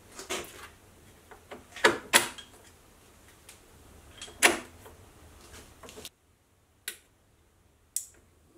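Sharp clicks and knocks of sheet metal and steel parts being handled and fitted on a milling machine's power-feed assembly, several in the first five seconds, then two single clicks after a brief silent gap.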